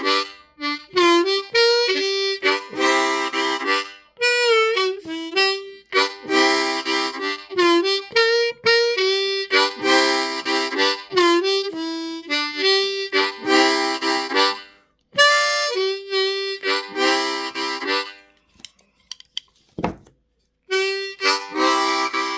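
Seydel diatonic harmonica in C played in rhythmic chord strokes with bent notes, with a brief pause near the end.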